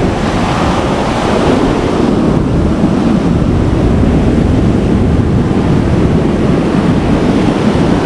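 Waves washing up the shore in rough, typhoon-stirred surf, a steady heavy rush, with wind buffeting the microphone.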